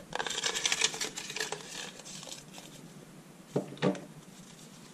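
A small container holding numbered slips being shaken, the slips rattling in quick clicks, densest in the first two seconds and then thinning out.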